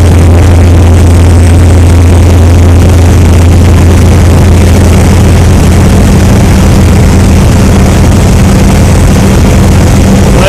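Motorboat engine running steadily at cruising speed, a loud low drone, over the rushing wash of the boat's wake.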